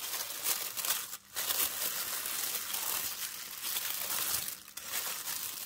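Tissue paper crinkling and rustling as it is pulled apart and unfolded by hand, with a couple of brief pauses.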